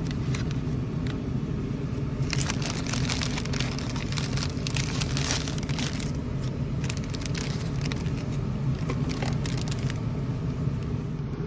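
Paper food wrapper and paper bag crinkling and rustling as a wrapped taco is unwrapped by hand, busiest from about two seconds in until near the end, over a steady low car hum.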